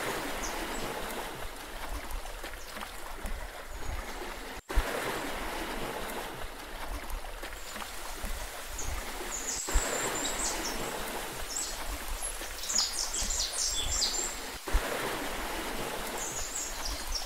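Steady rush of water, with small birds chirping high in bursts, mostly in the second half. The sound cuts out for an instant about every five seconds.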